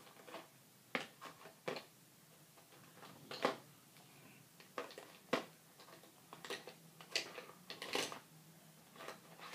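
Irregular small clicks and taps of face-paint supplies being handled, about a dozen of them, the loudest about three seconds in and again near the end.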